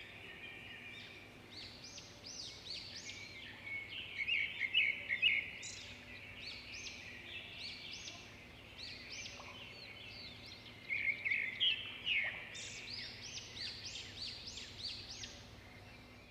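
Several songbirds chirping and calling at once in a dense chorus of short, high, quick notes, with louder bursts about four seconds in and again around eleven seconds; the sound fades out at the end.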